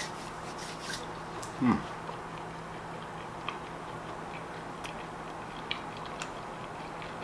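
A person chewing a mouthful of chicken sandwich, with faint scattered clicks from the mouth. About two seconds in there is a short hum from the eater that falls in pitch.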